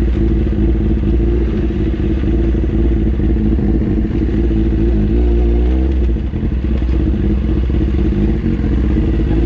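Sportbike engine with a straight-through exhaust running at low revs as the bike rolls slowly over a dirt trail. The revs rise and fall briefly about five seconds in, then it settles to a steady idle.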